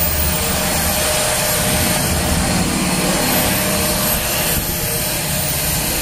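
Deerma DX118C corded stick vacuum cleaner running steadily: a constant rush of air with a faint motor whine as its floor head is pushed over a dusty floor.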